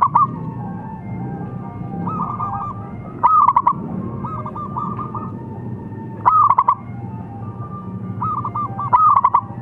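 Zebra dove (perkutut) cooing: four loud, short bursts of quick ringing notes about three seconds apart, with fainter cooing phrases in between.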